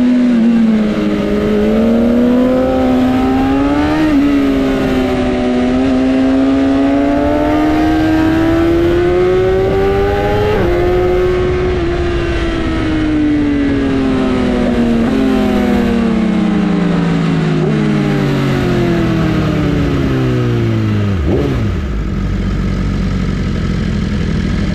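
Sportbike engine running hard, its pitch climbing slowly for the first half, then falling steadily as it comes off the throttle, with a quick downward sweep near the end.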